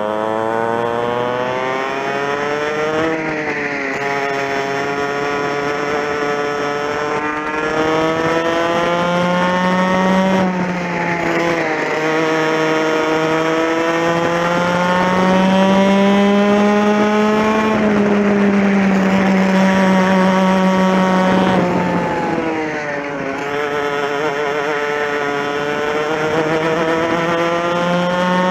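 TKM two-stroke kart engine heard onboard at race pace. Its note climbs steadily and then drops off sharply, several times over, as the revs build along the straights and fall away into the corners.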